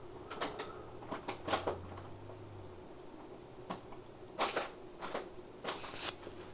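A cat shifting about on a delivery bag, the bag rustling and crinkling in short, irregular bursts, the loudest about four and a half seconds in and again near the end.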